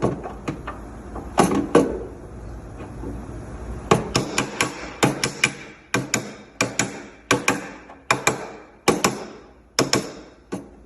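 Body flipper (slapper) slapping the Audi Q5's quarter panel against a dolly held behind it: sharp metallic slaps, each ringing briefly. A few scattered slaps at first, then a steady run of about two a second from about four seconds in. The slaps draw out low areas and tighten the panel.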